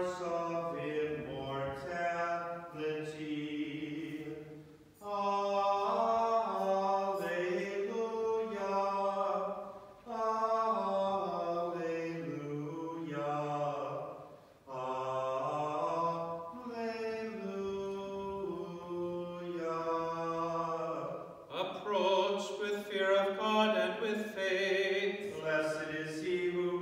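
Unaccompanied chanting of a Byzantine liturgical hymn, sung in long held phrases of about four to five seconds with brief pauses for breath between them.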